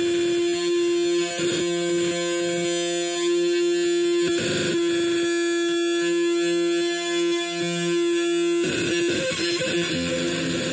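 Homemade experimental electronic noise machine sounding a steady, pitched drone with a pulsing lower undertone, twice briefly broken by noise. About three-quarters of the way through it turns into a noisier, shifting texture, then settles on a lower tone near the end.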